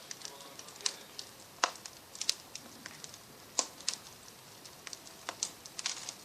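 Fire crackling: irregular sharp pops, about a dozen, unevenly spaced over a faint hiss.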